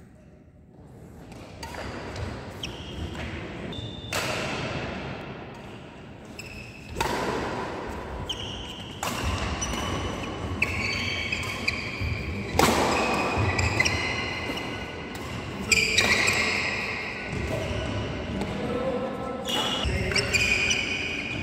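Badminton rallies in a large echoing hall: sharp racket strikes on the shuttlecock at irregular intervals, about one every second or two, with short high squeaks of shoes on the synthetic court mat.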